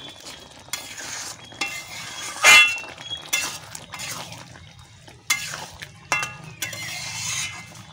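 Metal spatula stirring a thick curry in an aluminium kadai, scraping and clinking against the pan in irregular strokes, with one louder knock about two and a half seconds in.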